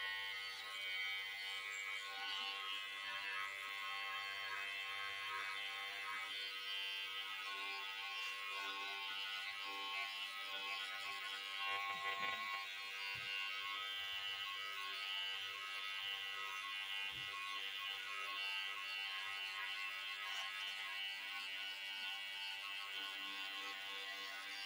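Cordless electric hair clipper running with a steady buzz while it trims short hair at the nape of the neck for a fade.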